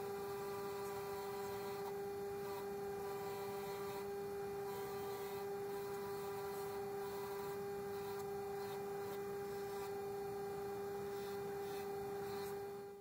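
Mac Afric bench grinder running steadily with a wire wheel spinning: a constant, even motor hum.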